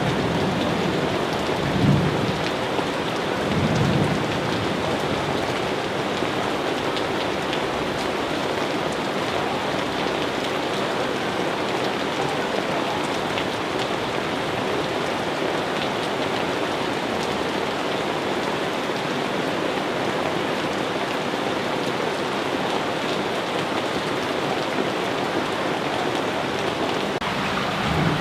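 Steady, even rain falling, with brief low rumbles of thunder about two and four seconds in.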